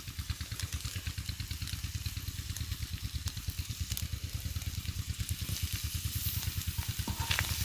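Minced mutton frying on a hot iron tawa over a fire, sizzling as tomato pieces go in, under a low, fast, steady throb.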